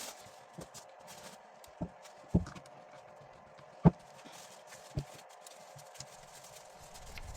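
Irregular sharp knocks and clicks of parts of a pond air pump being handled and set down on a workbench, the loudest about four seconds in, over a faint steady hum.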